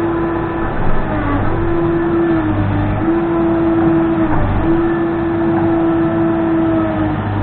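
Case 580N backhoe loader's diesel engine running at high revs under work. Its steady note sags briefly in pitch about five times as the hydraulics take load.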